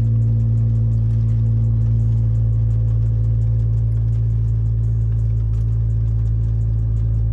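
2015 Fiat 500 Abarth's 1.4-litre turbocharged four-cylinder idling steadily just after a cold start, heard from inside the cabin.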